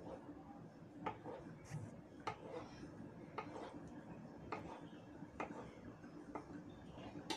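Kitchen knife cutting a block of soft tofu on a wooden cutting board, the blade tapping the board with each cut, about one tap a second.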